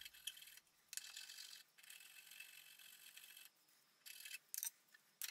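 Faint rasping of a flat hand file pushed across a small brass connecting rod clamped in a vise, in several strokes of differing length, the longest lasting about a second and a half in the middle.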